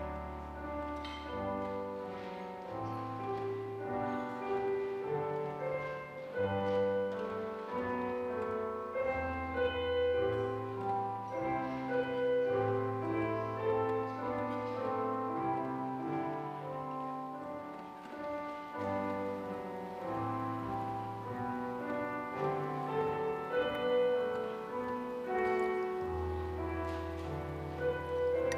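Slow instrumental church music on a keyboard instrument: sustained chords over long held bass notes that change every second or two.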